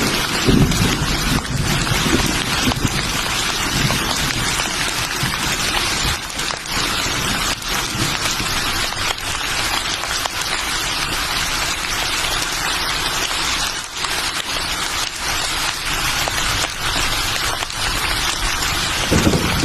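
Steady rain, an even hiss of drops falling on surfaces. A low rumble of thunder fades in the first second, and another begins near the end.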